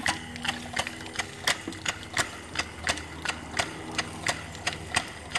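Brass model double-acting steam boiler feed pump, c.1896, running fast on steam, its pistons and valve gear clicking evenly about four times a second.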